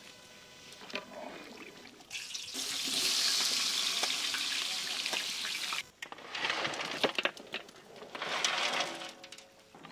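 Sliced onions sizzling in hot oil in a large cooking pot: a loud, dense hiss starts about two and a half seconds in and cuts off suddenly near the middle. Then comes a crackling, popping sizzle with many short clicks as pieces of mutton go into the hot pot.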